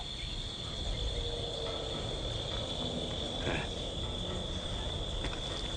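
Steady high-pitched chirring of insects, over a low outdoor rumble.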